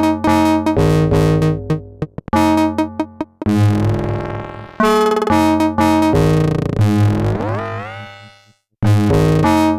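Make Noise Eurorack modular synthesizer playing short pitched electronic notes in a choppy rhythm. About 3.5 s in a held tone fades, and around 7 s in a note glides upward and dies away to a brief silence before the notes start again near the end.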